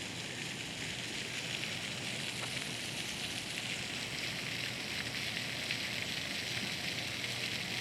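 Park water fountain splashing: a steady hiss of falling spray.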